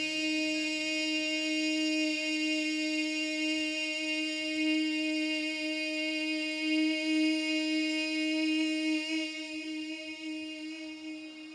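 Unaccompanied naat singing: a vocal drone held on one steady note for about ten seconds, fading near the end.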